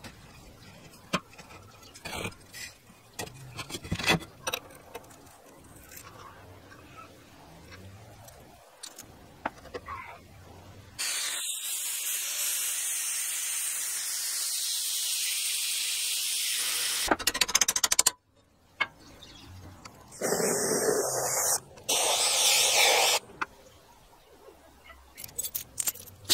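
Workshop sounds in quick succession: scattered scrapes, knocks and clinks of metal parts being handled, then about six seconds of an angle grinder grinding a steel bar, then two short bursts of hissing noise.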